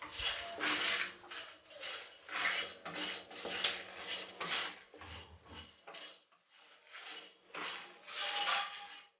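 Wooden spatula stirring whole spices in a dry non-stick kadai: repeated scraping strokes, about two a second, with seeds rattling over the pan and a short lull a little past halfway. The spices are being dry-roasted without oil, so there is no sizzle.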